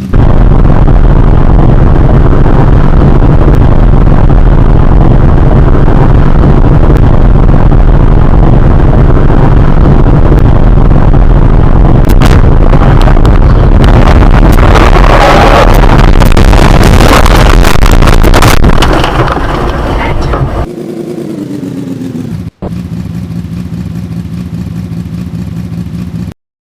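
Loud, heavily overdriven motor-vehicle engine noise, steady for most of the time, with added clatter in the middle. Near the end it drops to a quieter steady hum, with a falling tone before it cuts off.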